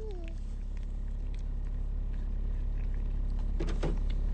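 Steady low hum of a car heard from inside the cabin, growing gradually louder, with a brief short sound near the end.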